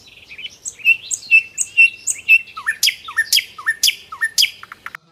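Birdsong: a bird repeating short high chirps, then from about halfway four louder calls, each sweeping sharply upward.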